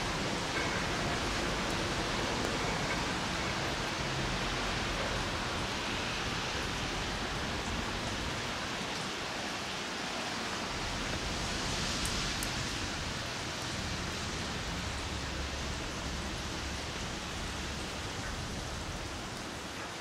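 Steady hiss of light rain, with a faint low rumble underneath.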